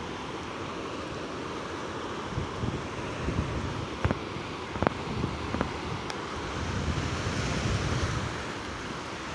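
Mediterranean surf washing onto a sandy beach, with wind buffeting the microphone. Three short sharp clicks come about halfway through.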